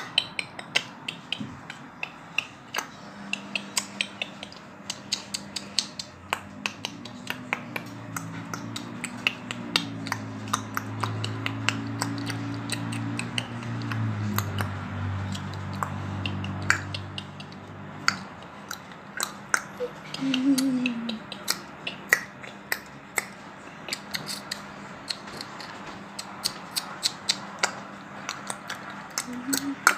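Rapid, irregular sharp clicks and taps, several a second, over a low steady hum; a louder wavering low drone swells in about a quarter of the way through and fades a little past the middle.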